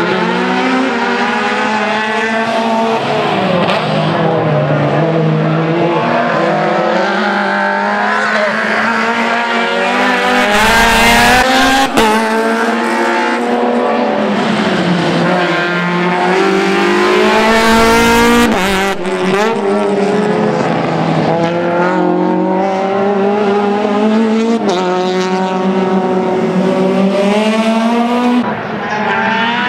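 Race car engines revving hard and lifting off in turn, the pitch climbing and dropping again and again through gear changes. Two short, loud rushes of noise come about ten and about seventeen seconds in.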